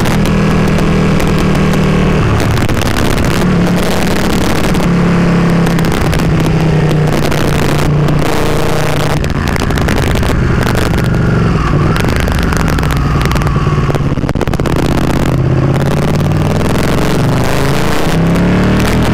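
Ducati Panigale 959's V-twin engine heard onboard at riding speed, its pitch rising and falling with throttle and gear changes, with wind rushing over the microphone.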